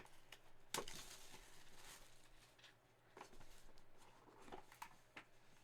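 Faint rustling and light clicks of a cardboard trading-card box and its packs being handled and opened, with the sharpest click about a second in.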